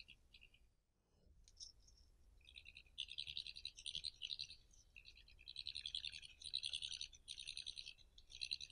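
European badger calls: high-pitched, rapid chittering in bursts of a second or so, starting about two and a half seconds in and repeating through to the end.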